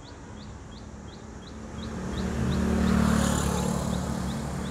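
A vehicle passes on the street: its engine hum swells to a peak about three seconds in and then fades. Under it, a short high chirp repeats about three times a second.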